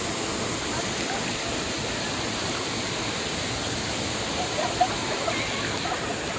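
Steady rush of a fast-flowing river running around boulders, with one brief sharp knock or splash about three-quarters of the way through.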